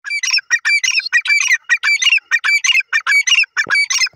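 Grey francolin calling: a loud, rapid run of shrill repeated notes, about three a second without a break.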